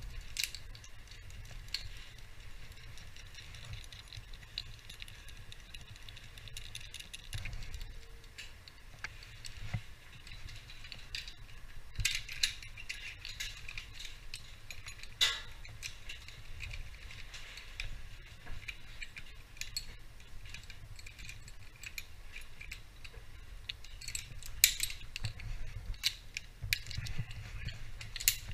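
Metal carabiners and rigging hardware clinking and jangling as they are handled, in scattered sharp clinks, with the loudest ones a little before the middle and again near the end.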